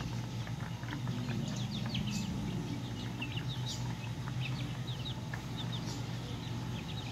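Chicks peeping, many short high cheeps overlapping, over a steady low hum.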